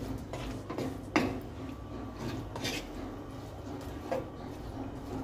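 Wooden spoon stirring sliced bell peppers and onions in a nonstick frying pan, with scattered scraping strokes and a sharp knock about a second in.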